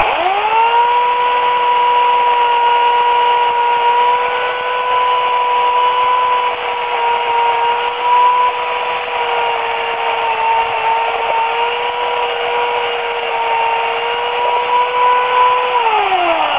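Remington Limb N Trim RM1415A corded electric chainsaw (8-amp motor, 14-inch bar) switched on and spinning up at once to a steady high whine. It runs at full speed with slight dips in pitch, then winds down with a falling whine near the end as the trigger is released.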